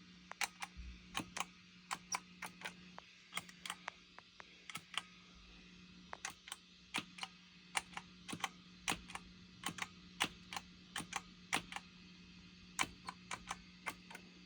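Moen GEC8Jr pedal switcher's footswitches pressed over and over: sharp clicks at about two or three a second, each a switch press with a pop through the guitar amplifier, over a steady amp hum. The pops come with nothing plugged in but the output cable, a fault in a switcher meant to cancel switching pops.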